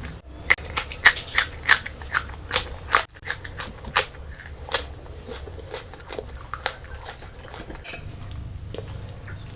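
Close-miked chewing of crunchy food: a quick run of sharp crunches, about three a second, through the first three seconds, then fewer and softer.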